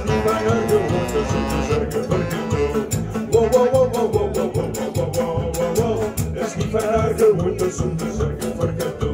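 A small band playing a chanson live: acoustic and electric guitars, saxophone and percussion, over a steady beat with a wavering melody line.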